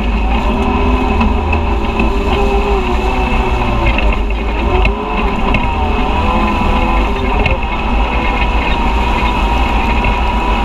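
Side-by-side UTV's engine running while driving, its pitch rising and falling with the throttle, with a brief dip in level about five seconds in.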